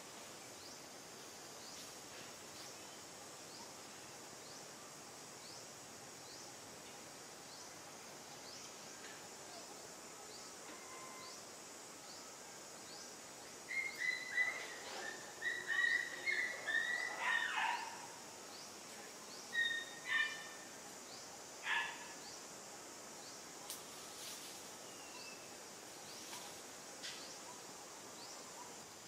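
Infant long-tailed macaque giving a run of high-pitched squeaky cries for about four seconds about halfway through, then two more short cries a few seconds later. Behind them runs a steady high insect hum with regular faint chirps.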